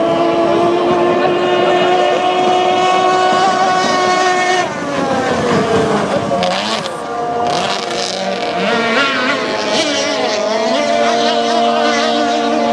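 High-revving engines of vintage racing boats running at speed, a steady high note. About five seconds in the note drops away as a boat passes, several engine notes sweep up and down against each other, and near the end a steady high note settles in again.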